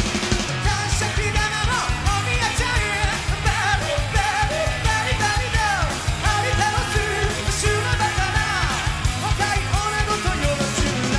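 Rock band playing live: drum kit, bass and electric guitars under a singer whose voice slides between notes and breaks into shouts.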